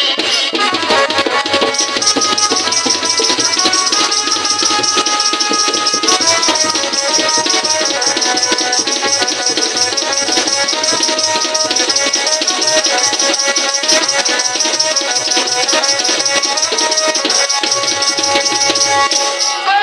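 Instrumental Halbi nat folk music: a melody of held notes over hand drums and fast, steady jingling percussion.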